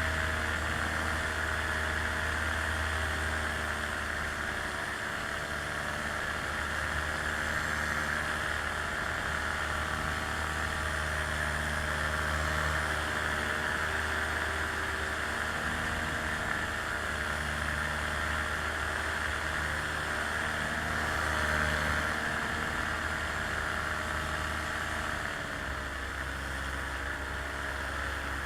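Small aircraft's motor running steadily in flight, its pitch dropping slightly near the end.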